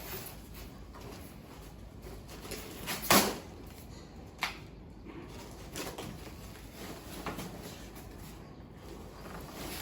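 A stiff cardboard mirror box being forced open by hand: scraping and handling noise, with a sharp loud crack about three seconds in and a shorter one a second and a half later.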